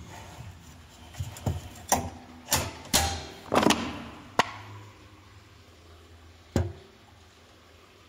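A quick series of knocks and clunks, about seven over three seconds, with a scraping rattle in the middle, then one more knock near the end: objects being handled and knocked about.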